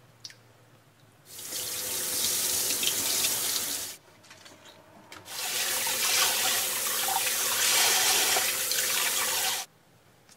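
Kitchen tap running into a stainless-steel sink as a boiled bamboo shoot is rinsed and its husk peeled under the stream, in two spells, the first about two and a half seconds and the second about four, with a short pause between.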